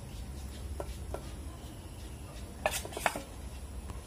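Metal spoon clinking against a stainless-steel bowl while a bitter gourd is coated in thick batter: a few light clicks, the two loudest near the end.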